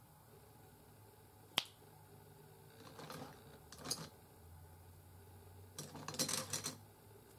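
Small handling noises: one sharp click about one and a half seconds in, then scattered soft clicks and taps, with a denser cluster near the end.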